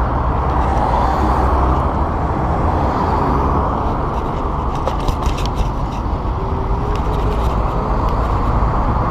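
Steady rush of wind and road noise while riding a folding electric scooter, heaviest at the low end, with a few light clicks about five seconds in.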